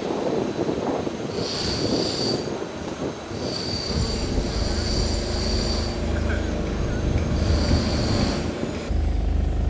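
High-pitched metallic squealing, three times, over a low steady engine rumble that comes in about halfway through.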